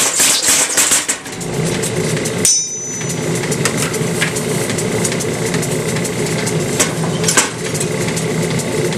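Little Giant mechanical power hammer striking a top tool on hot steel in a rapid run of blows for about the first second. Its drive then runs steadily, with a few single knocks later on.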